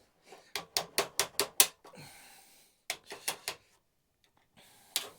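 A quick run of sharp clicks, about five a second for just over a second, a few more after a short pause, and one last single click near the end.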